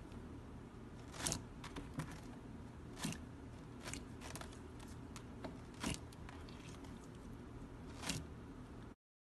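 Thick white slime being squeezed and stretched by hand, giving sharp clicks and pops every second or so over a low hum. It cuts off suddenly near the end.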